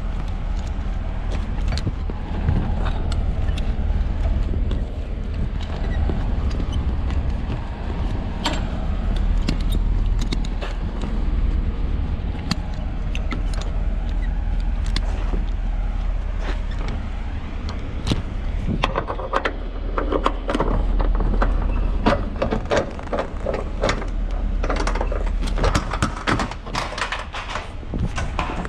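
Metal buckles on a curtainsider trailer's side curtain being unhooked one after another, each giving a sharp click or clank. In the last third the clicks crowd into a dense metallic rattling as the curtain is pushed open along its rail. A steady low rumble runs underneath.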